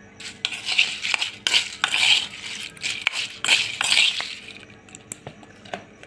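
Metal utensil clinking and scraping against a steel pot in several short bursts, quieter near the end.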